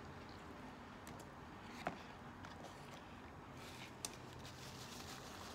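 Faint eating and handling sounds over quiet room tone: a few soft clicks and a brief light crackle about two-thirds of the way through, as a crispy chicken sandwich is chewed and set down in its cardboard box.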